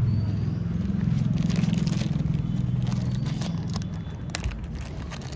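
Low, steady hum of a nearby vehicle's engine running, fading away after about three and a half seconds. Light crackles and clicks from a plastic cotton-bud packet being handled.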